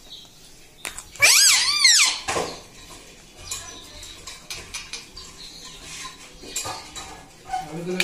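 Indian ringneck parakeet giving two short squawks a little over a second in, each rising then falling in pitch. Quieter scattered light clicks follow.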